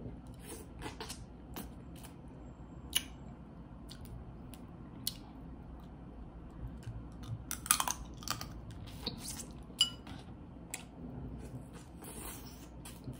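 Close-miked eating of a crawfish seafood boil: scattered sharp clicks and cracks of shells being peeled, with wet squishing and chewing. The clicks come thickest a little past halfway.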